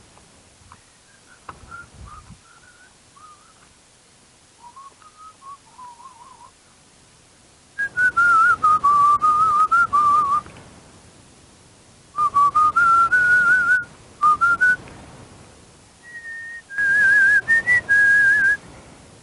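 A person whistling a tune: soft, broken phrases at first, then three louder stretches from about eight seconds in, each with a rushing, breathy noise under the melody.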